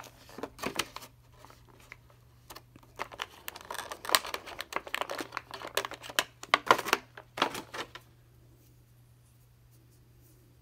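Thin clear plastic packaging crinkling and crackling in irregular bursts as a small action figure and its bow accessory are pulled free of it; the handling stops about eight seconds in.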